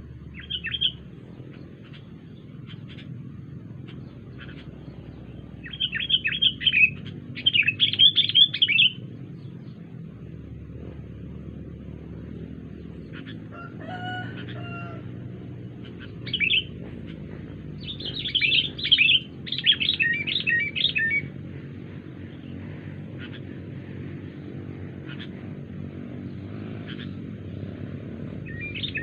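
Sooty-headed bulbul (kutilang) calling in several short bursts of rapid, chattering notes, over a steady low hum.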